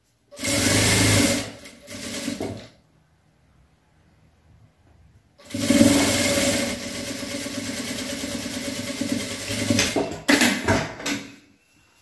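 Electric sewing machine stitching a seam through cotton patchwork. It runs in two goes: a short run of about two seconds, a pause, then a longer run of about five seconds that ends in a few short stop-start bursts.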